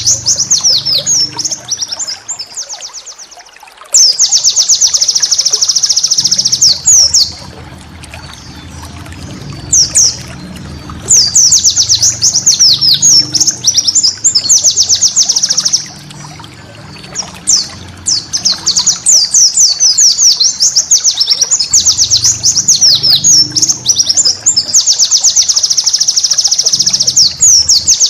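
White-eye (pleci) singing long, very fast high-pitched trills: the rapid-fire 'tembakan' runs, in several bursts with short pauses between them.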